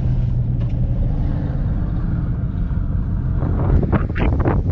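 A truck driving, heard from inside the cab: steady low road and engine rumble, with choppy louder noises coming in near the end.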